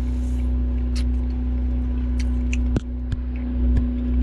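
Steady low machine hum with a constant drone, plus a few small clicks. About three seconds in, the hum briefly drops, then comes back.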